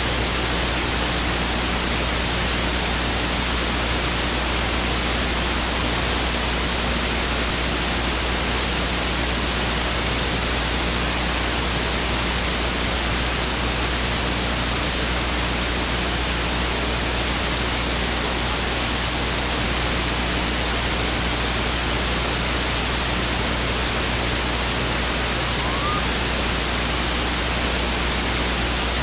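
Steady static hiss, even across all pitches and unchanging in level, with a faint low electrical hum beneath it. No sounds of the game come through.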